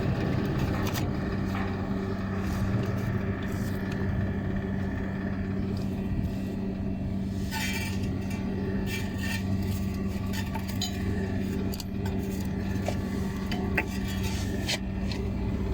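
A steady low electrical hum, with light metallic clinks and scrapes scattered through it, like tools or small metal parts being handled.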